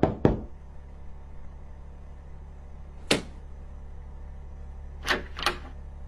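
Quick whooshing transition sound effects at the start, then three more short swishes, one about three seconds in and a pair about five seconds in, over a steady low hum.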